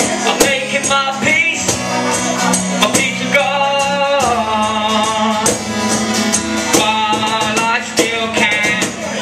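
Live acoustic music: a cajon slapped by hand keeps a steady beat under a strummed acoustic guitar, while a man sings long held notes into a microphone.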